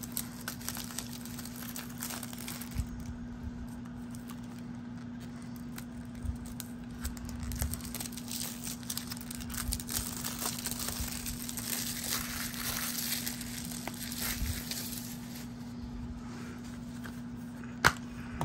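Plastic shrink-wrap being torn and peeled off a Blu-ray case, crinkling and rustling. Near the end, one sharp click as the plastic case is snapped open.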